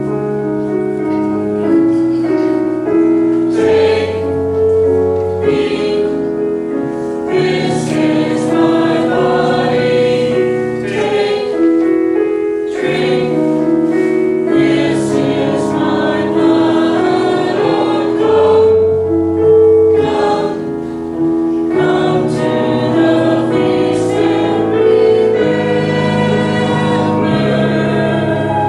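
Small mixed choir of men and women singing a sacred song together, with held notes moving from chord to chord.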